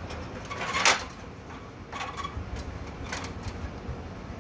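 Aluminium stepladder knocking as a person climbs its steps: one sharp clank about a second in, the loudest, then lighter knocks near two and three seconds.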